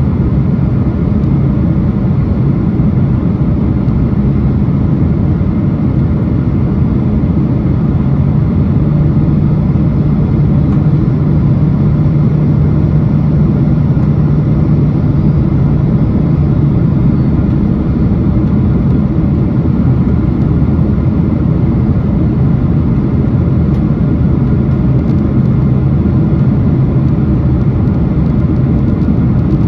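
Steady cabin noise of a jet airliner on approach to landing: turbofan engines and rushing airflow heard from inside the cabin, with a low hum that swells for several seconds in the middle.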